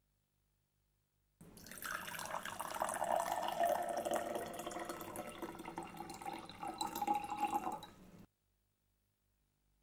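Syrup poured from a small glass bottle into a tall drinking glass: a steady pour that starts about a second and a half in and stops abruptly near the end, its pitch rising slowly as the glass fills.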